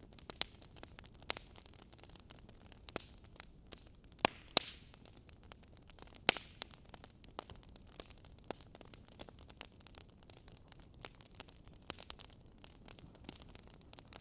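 Wood fire crackling in a fireplace: irregular small crackles with a few sharp, louder pops, the loudest around four and six seconds in, over a low steady hiss.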